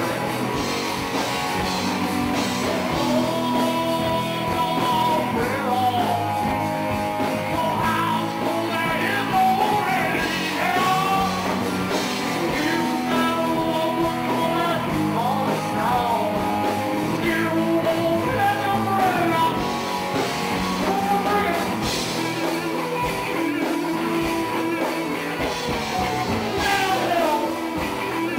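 Live rock band playing, with a man singing into a microphone over guitar and drums.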